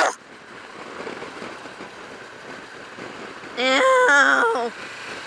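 Steady rushing wind and road noise inside a motorcycle helmet while riding. About three and a half seconds in, a woman gives a drawn-out vocal sound lasting about a second, louder than the wind.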